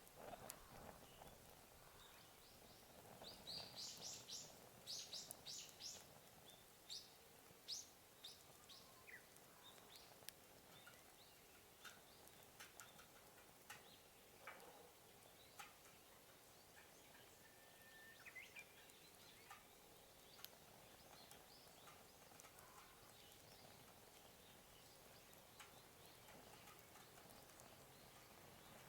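Faint crackling of a wood campfire burning on its own, with scattered small pops and a quick flurry of sharper snaps a few seconds in.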